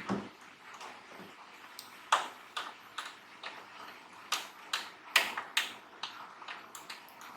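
Irregular sharp clicks and light taps, about a dozen, with the loudest a little past two seconds and around five seconds in: small hard parts and tools being handled during bench repair work.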